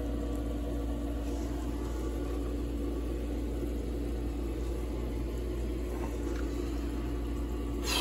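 Steady low mechanical hum of pool equipment running, a motor drone with a few steady tones in it. A brief louder rush comes just before the end.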